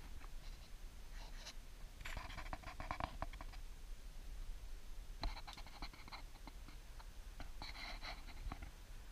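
Dogs' paws scratching and scuffing on dirt and leaf litter, in three short bouts of scratchy ticks.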